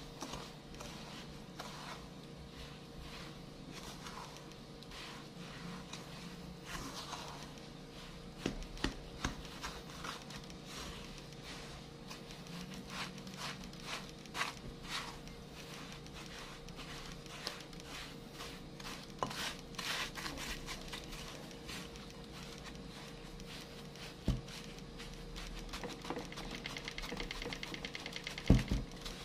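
Plastic spatula stirring and pressing graham cracker crumbs moistened with condensed milk in a glass bowl: soft crumbly scraping with scattered small clicks against the glass, and a couple of sharper knocks near the end.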